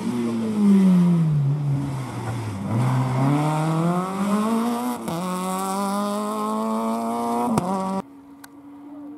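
Citroën Saxo rally car's engine crossing a muddy ploughed field: the revs fall for about two and a half seconds, then climb hard, drop quickly about five seconds in as it shifts up, and climb again. Near the end a sudden cut leaves a fainter, steady engine note.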